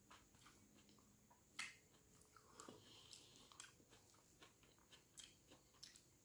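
Faint chewing and mouth sounds, scattered short wet clicks and smacks, the sharpest about one and a half seconds in, along with fingers squishing and mixing rice on a banana leaf.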